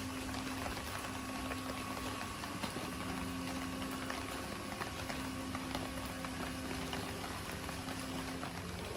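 Liquid bubbling steadily, an even fizzing hiss with scattered small pops.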